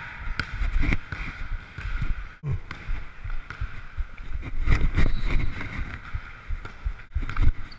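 Irregular thuds of a basketball bouncing and footsteps on a hardwood gym floor, over low rumbling motion noise on the microphone of a camera worn by a running player.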